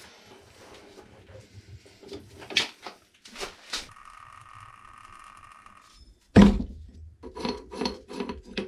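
Knocks and clunks of objects being handled, with a steady whine lasting about two seconds around four seconds in. A single heavy clunk about six and a half seconds in is the loudest sound, followed by a run of lighter clicks near the end.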